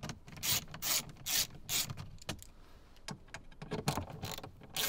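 Ratchet with a 7mm socket clicking in short, uneven runs as it undoes the fasteners holding the lower dash panel beneath the steering wheel.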